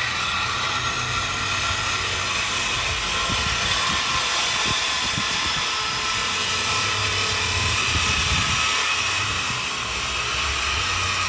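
Steady high whirring of muffler-shop machinery or air tools, with a few short clicks about four to five seconds in.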